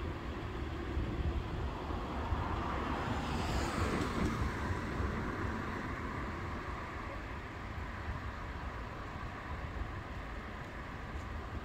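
Steady rumble of road and rail traffic at a busy level crossing, with a sound falling in pitch about four seconds in.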